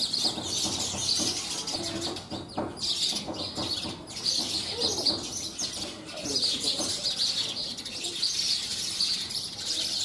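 House sparrows chirping: a steady stream of overlapping high chirps.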